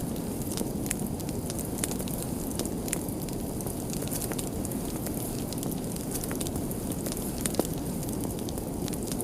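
Wood fire burning with a steady low rush of flame and irregular sharp crackles and pops, a few louder pops near the end.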